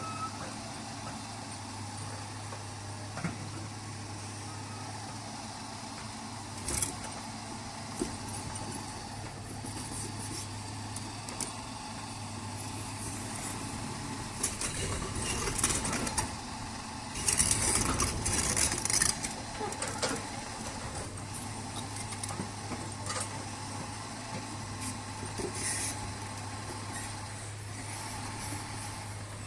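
A motor vehicle's engine running with a steady low hum, with knocks and loose clattering and rattling that are loudest about halfway through.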